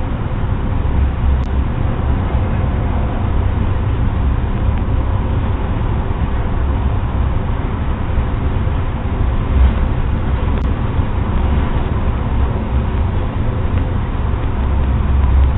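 Steady rumbling noise with no distinct events, as heard through a doorbell camera's microphone with its narrow, muffled sound.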